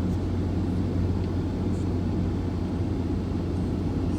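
Ram 2500 pickup's Hemi V8 engine running at a steady speed, a constant low drone.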